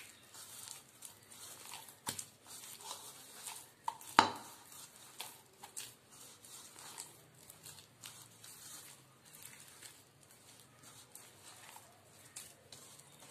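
A hand squishing and mixing thick rava and wheat-flour batter in a bowl: faint, irregular wet squelching, with a sharp knock about four seconds in and a smaller one about two seconds in.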